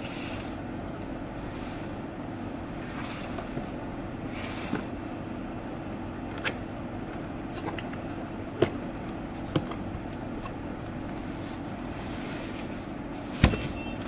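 Cardboard box and bubble wrap being handled during an unboxing, with soft rustling and a handful of sharp knocks on a table, the loudest near the end as the bubble-wrapped coffee pot is set down, over a steady background hum.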